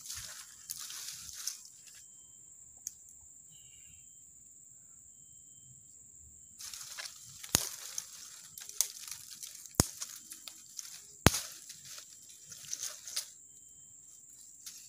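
Dry wood, twigs and leaves being handled and broken up while a campfire is being laid, rustling and crunching in two spells, with three sharp cracks in the second spell.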